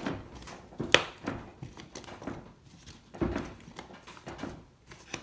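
Hard plastic clicks and knocks from 3D-printed parts as a drive ring is pushed by hand into a tight-fitting ring of foundation pieces: a sharp click about a second in and a duller thump a little after three seconds, with softer rubbing and handling noise between.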